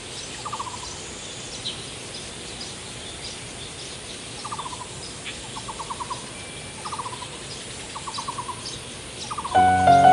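Bird calls: short, quick trills of a few notes each, repeated every second or so, with scattered high chirps over a steady hiss. Near the end, piano music starts and is louder than the birds.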